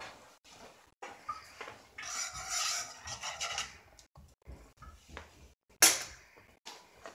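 A kitchen utensil scraping against a dish for a second or two, with small knocks, then one sharp clink a little before the end.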